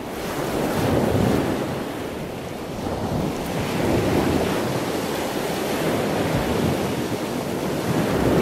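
Ocean surf: waves rushing in, the sound swelling and ebbing in three slow surges.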